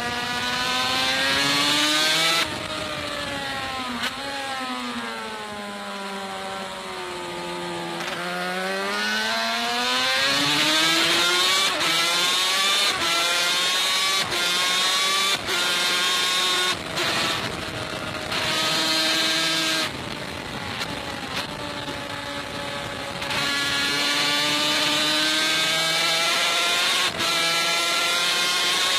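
Racing motorcycle's two-stroke engine revving hard through the gears on a track, its pitch climbing and then cutting back sharply at each of several shifts, with a long slow fall and rise in pitch around a corner early on.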